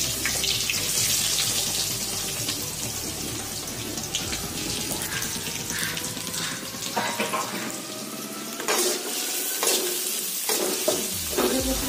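Chopped onions sizzling in hot oil in an aluminium kadai, a steady hiss, with a spatula scraping and knocking against the pan from about seven seconds in as they are stirred.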